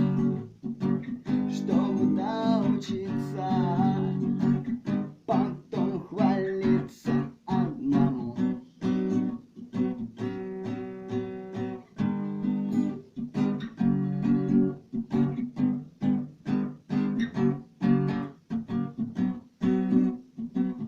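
Acoustic guitar strummed in a steady rhythm, playing an instrumental passage of a self-written song.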